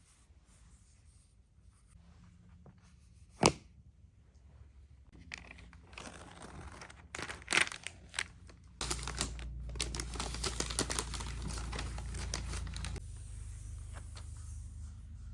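Unboxing packaging being handled, torn and crinkled. There is a sharp snap about three and a half seconds in, then a few more, and a dense stretch of tearing and crinkling through the second half that eases off near the end.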